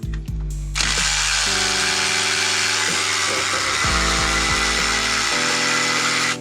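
Background music with steady sustained notes. Under a second in, a loud, even, high-pitched whir starts and holds steady, like a power tool running.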